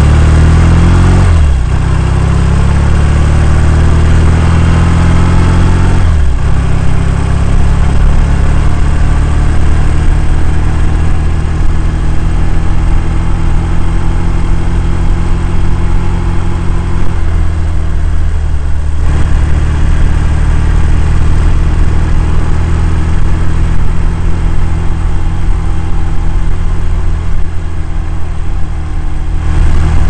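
1967 Triumph Bonneville's 650 cc parallel-twin engine running under way. The engine note climbs and then drops sharply at upshifts, about a second in and again about six seconds in, then holds steady at cruising speed, easing briefly around seventeen seconds.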